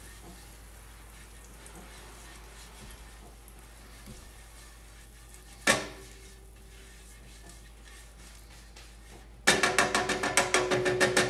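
Melted butter sizzling faintly in a hot nonstick pan as it is brushed around with a silicone basting brush, with one sharp click about halfway through. Near the end a much louder rapid rattle with a ringing tone starts and carries on.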